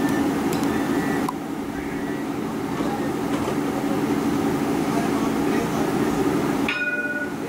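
CAF light rail tram standing at a platform, its onboard equipment humming steadily. A brief electronic beep sounds near the end.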